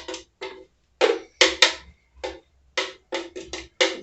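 Repeated sharp knocks, about a dozen in four seconds at an uneven pace, each with a brief pitched ring and short silences between.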